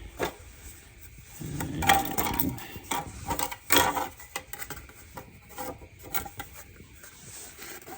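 Handling noise: scattered knocks, taps and clicks as a plastic mounting bracket is held and shifted against the car's body.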